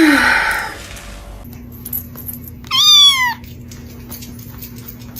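A domestic cat meows once, about halfway through: a clear meow that rises and then falls in pitch. It is preceded by a short, loud, noisy sound at the very start.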